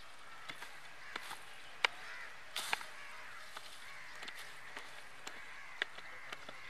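A wooden stick jabbing and scraping into hard, dry ground at a burrow, giving scattered sharp knocks, the loudest about two seconds in. Birds call faintly in the background.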